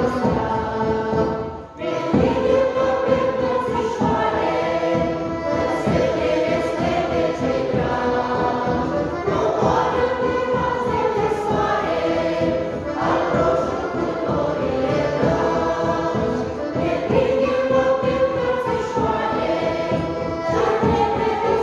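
Mixed choir of men and women singing a lively folk song to accordion accompaniment, with a steady dance rhythm. The music breaks off briefly just before two seconds in, then carries on.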